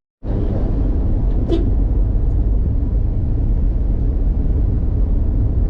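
Steady low rumble of vehicle travel noise, wind and road, with one brief higher sound about a second and a half in.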